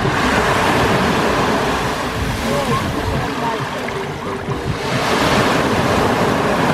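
Mediterranean surf breaking and washing up the beach in a steady rush of water, swelling with one wave at the start and another about five seconds in.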